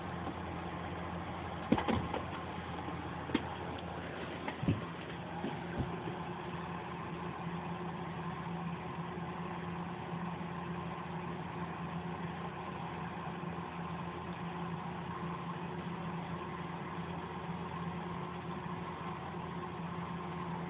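A steady machine-like hum with a few fixed tones, broken by several short knocks or clicks in the first six seconds.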